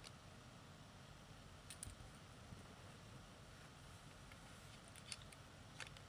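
Near silence with a few faint clicks of plastic Lego pieces being handled and pressed together.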